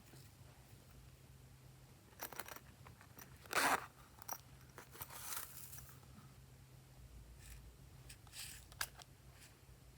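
Slime being worked by hand: a few short crackles and squishes at irregular moments, the loudest about three and a half seconds in, over a faint steady low hum.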